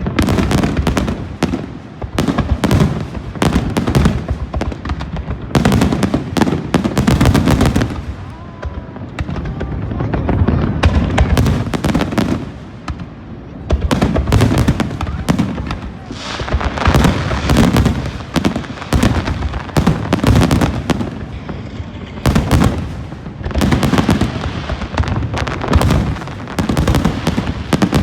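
Aerial fireworks exploding in rapid, dense volleys of bangs and crackles with booming echoes, easing for a moment about a third of the way in and again just before halfway, then building again.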